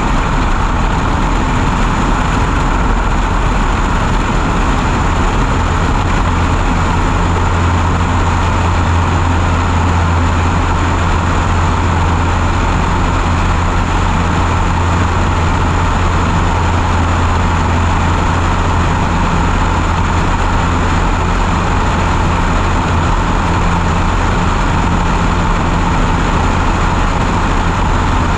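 Light aircraft's engine and propeller running at takeoff power through the takeoff roll, liftoff and climb, a steady low drone. Heavy wind rush over the camera mounted outside under the wing.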